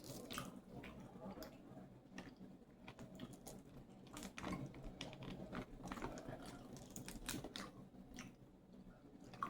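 Person eating crab and shrimp close to the microphone: quiet chewing with irregular sharp clicks and small cracks.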